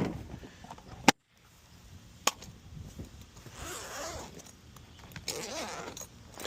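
Sharp clicks and knocks, about a second apart in the first few seconds, then spells of scraping and rustling handling noise.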